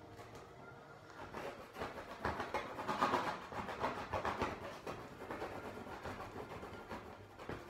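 Paint strokes scraping and dabbing on a stretched canvas: a quick, irregular run of short scratchy strokes, loudest about three seconds in.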